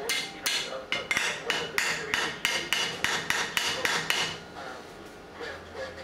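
A small plastic toy tool rapping on the door of a front-loading washing machine: quick, even knocks about four times a second that stop about four seconds in.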